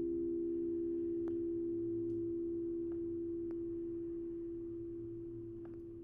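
Singing bowls ringing on after being struck: several steady low tones held together and slowly fading, with a few faint ticks.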